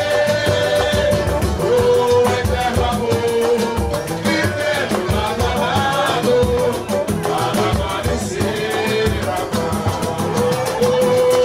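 Live samba: a male lead singer on a microphone with the crowd singing along, over a steady beat of pandeiro, drums and strummed cavaquinho.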